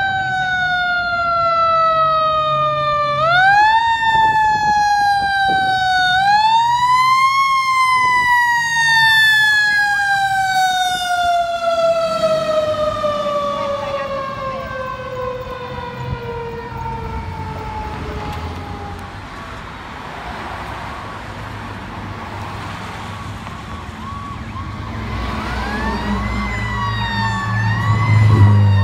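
Fire engine's mechanical siren winding up twice and then coasting down in one long falling wail. Near the end a second siren rises and falls, and a heavy truck engine passes close, the loudest moment.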